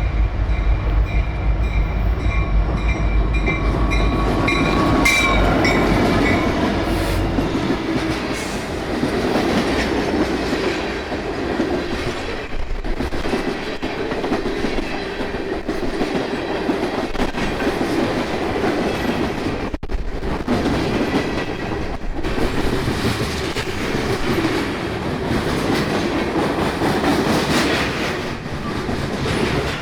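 Heavy freight train passing: a deep diesel locomotive rumble with a pulsing ringing tone over it for the first several seconds, then the freight cars rattling and banging, with the clickety-clack of wheels over rail joints.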